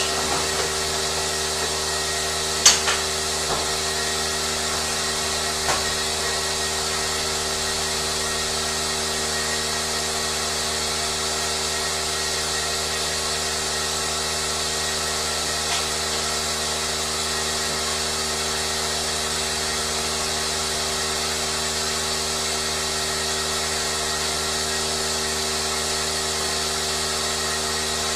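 A steady machine whirr with many fixed tones, unchanging throughout, with a sharp click about three seconds in and a fainter one near six seconds.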